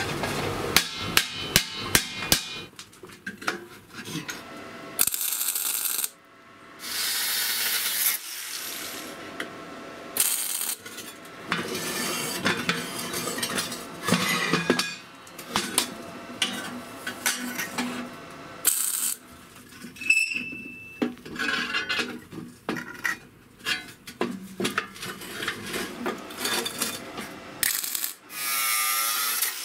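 Metal parts knocking, clinking and scraping as they are handled and worked on: many short sharp knocks, with a few brief bursts of hiss.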